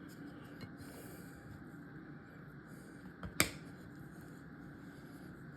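Quiet room tone broken by one sharp click, with a fainter tick just before it, about three and a half seconds in.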